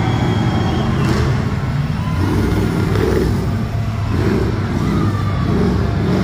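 Monster truck engines running with a loud, steady low rumble that swells and eases a little as a truck creeps forward.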